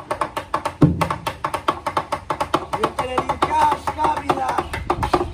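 Rhythmic percussion music: a fast, even run of wooden clicks, about five or six a second, over a drum. There is a low drum hit about a second in and a brief high pitched line near the middle.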